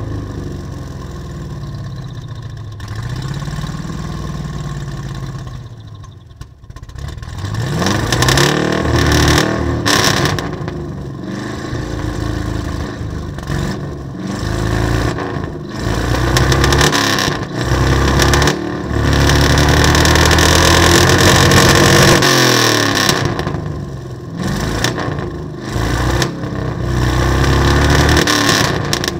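A 1987 Chevy Scottsdale pickup's engine, run for the first time in a while, revved up and down over and over. The pitch climbs and falls several times, drops back toward idle about six seconds in, and holds a long high rev a little past two-thirds of the way through.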